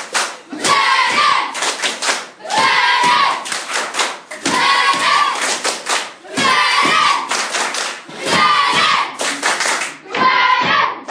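A roomful of schoolchildren clapping and singing out together in a repeated rhythm. There is one loud burst of claps and voices about every two seconds.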